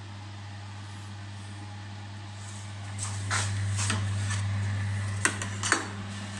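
Homemade egg incubator running with a steady low electrical hum. In the second half, a few sharp clicks and knocks from its door or egg trays being handled.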